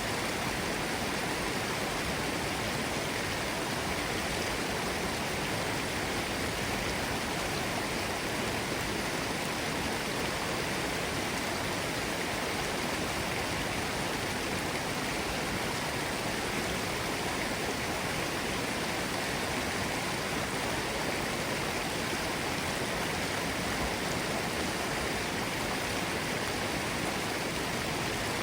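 Forest stream running steadily over rocks, an even rushing of water.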